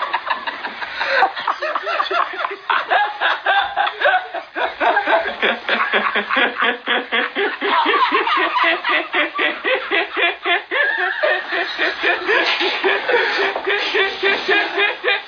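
Uncontrollable laughter: fast, repeated giggling pulses, several a second, that keep going without a break.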